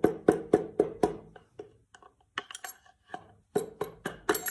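Hammer blows on the end of a wooden hammer handle used as a drift, driving a piston out of its cylinder bore in a Ford 302 V8 block: quick, evenly spaced strikes about four a second for the first second, then slower, irregular taps.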